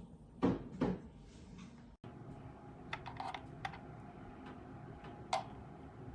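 Two sharp knocks close together, then a scattering of light clicks and taps over faint steady room noise, like small plastic objects being handled or pressed.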